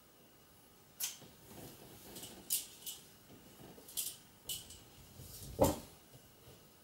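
A metal telescopic selfie stick being handled: about six sharp clicks with some scraping as the phone is taken off its clamp and the pole is slid shut. The loudest click comes about a second before the end.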